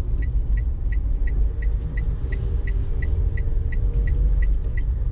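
A car's turn-signal indicator ticking about three times a second, signalling a left turn, over the steady low rumble of the engine and tyres heard inside the cabin.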